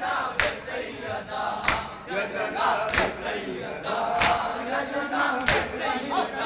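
A group of mourners chanting a Muharram nauha together, with a sharp, loud beat about every second and a quarter keeping time.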